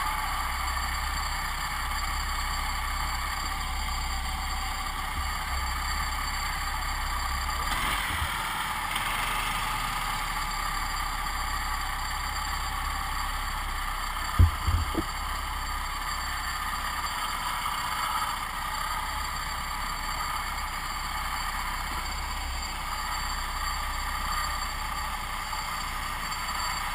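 Go-kart engine running steadily at low speed, heard onboard the kart. About halfway through comes one sharp knock, followed by a couple of smaller ones.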